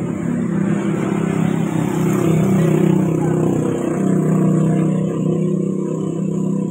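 A truck's engine running close by: a loud, steady low drone that swells a little around the middle.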